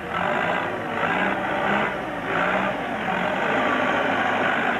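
Backhoe loader's diesel engine working hard as the machine moves soil. The engine noise swells and eases several times, then holds steady.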